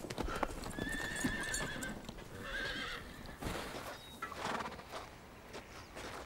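A horse whinnying, with the clop of its hooves.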